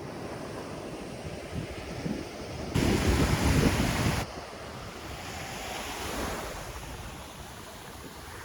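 Strong Mediterranean surf breaking and washing on the shore, with wind on the microphone; a louder rush of noise starts suddenly about three seconds in and stops just as suddenly about a second and a half later.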